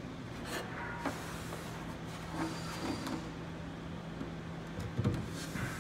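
Western Red Cedar bench seat being lifted and set against the leg assemblies on a workbench: a few light knocks and scrapes of wood on wood, over a steady low hum.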